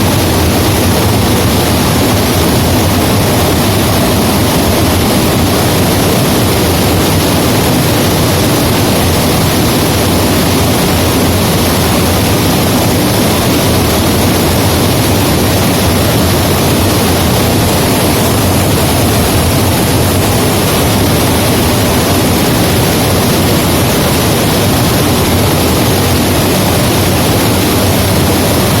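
A dam's overflow pouring down in a heavy sheet like a waterfall, heard from behind the falling water: a loud, unbroken rush of water that does not change.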